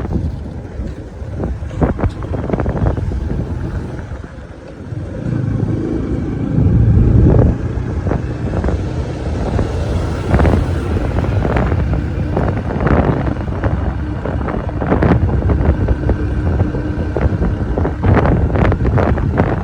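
Road traffic with wind buffeting the microphone: a steady low rumble of vehicles, rising to a louder pass about six seconds in, broken by frequent gusty thumps.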